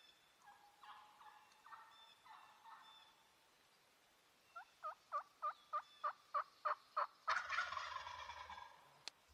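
Wild turkey calling: faint calls at first, then a run of about ten yelps at about four a second, cut off by a rattling gobble lasting about a second and a half. A single sharp click comes near the end.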